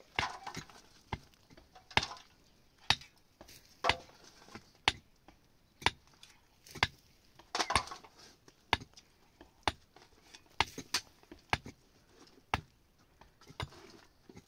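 Pickaxe blows into dry, stony earth, a sharp strike roughly once a second, with a few closer-spaced blows near the end.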